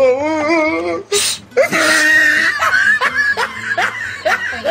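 Cats fighting: two long, wavering yowls with a short hiss between them about a second in, followed by shorter rising cries.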